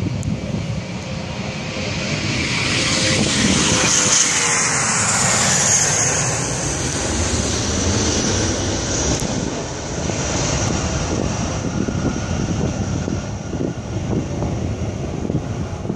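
An MD-90's two rear-mounted IAE V2500 turbofans at takeoff power as the jet rolls past, lifts off and climbs away. The roar builds to its loudest about five seconds in, with a falling whine as the aircraft passes, then eases into a slowly fading rumble.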